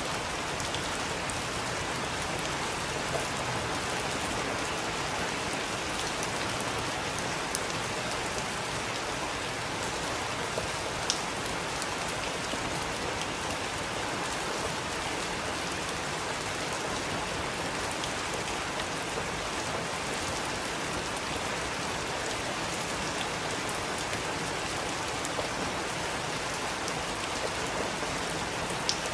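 Heavy rain falling steadily, a dense even hiss, with a few sharp drop ticks standing out now and then.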